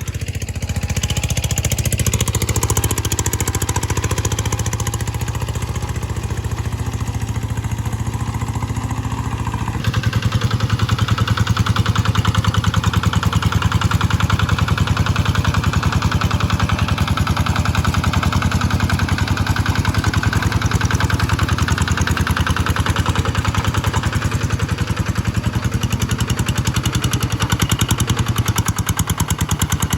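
A G1000 hand-tractor engine running on test with a steady, regular beat. About ten seconds in it steps up and runs louder, then holds steady.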